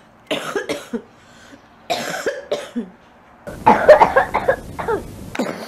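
A person coughing in separate bouts: a couple of coughs about half a second in, a couple more around two seconds, then a longer fit of several quick coughs from about three and a half seconds.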